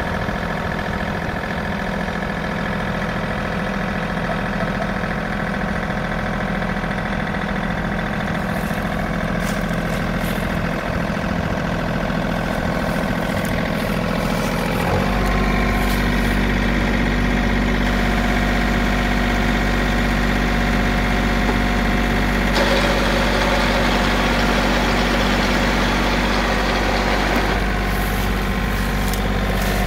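John Deere 3038E compact tractor's three-cylinder diesel engine running steadily at idle. About halfway through, the engine note shifts and gets a little louder.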